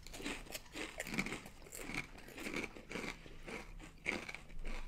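People crunching and chewing wavy potato chips close to the microphone, a crisp crunch about twice a second.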